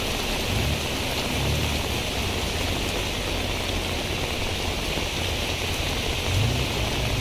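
Steady tropical rain falling, an even hiss. A low hum comes in briefly about half a second in and again near the end.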